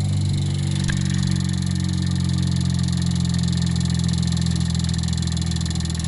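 A homemade reed-switch pulse motor's magnet rotor spinning after a hand start, running with a steady low hum.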